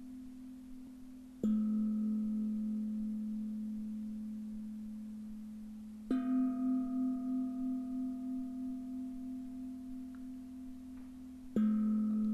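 Two singing bowls struck in turn, three strikes about five seconds apart. Each rings on and fades slowly, the lower and higher notes alternating, and the higher one wavers as it decays. The strikes mark the rhythm of the breathing in the exercise.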